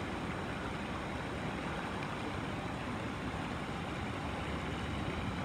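Shallow rocky stream flowing steadily, a constant rush of water with no distinct splashes.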